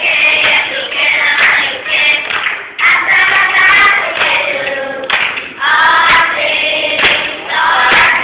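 A children's choir singing, with hand clapping, recorded on a phone.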